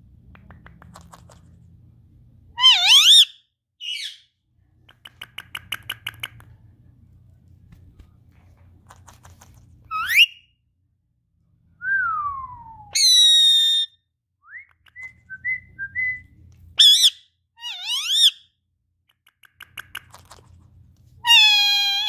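Indian ringneck parakeet calling: a string of loud whistled calls, some gliding sharply up, one falling, and a couple held steady for about a second, with quieter stretches of rapid clicking chatter between them.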